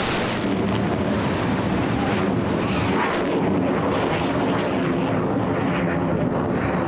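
Standard Missile SM-2's solid-fuel rocket motor as the missile climbs away just after launch from a destroyer, a steady noisy roar. Its sharp launch hiss dies down within the first half second, leaving a continuous rumble.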